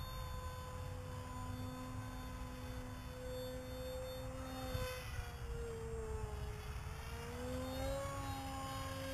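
Electric motor and propeller of an RCPowers F-35 v2 foam RC jet flying overhead, a steady whine that drops in pitch a little past the middle and climbs back about two seconds later, over a low rumble.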